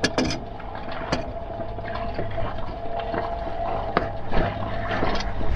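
Engine oil draining from the generator's drain tube into a metal drain pan, a steady pouring trickle, with a few sharp metallic clicks as channel-lock pliers work the oil filter loose.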